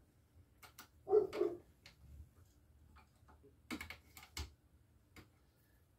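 Choke tube key turning a steel choke tube into the muzzle threads of a Stevens 320 20-gauge shotgun: scattered small metal clicks, with a brief low sound about a second in and a cluster of clicks near four seconds.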